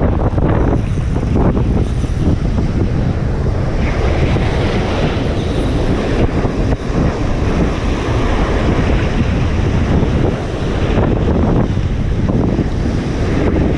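Strong wind buffeting the microphone, a loud steady low rumble, with surf behind it.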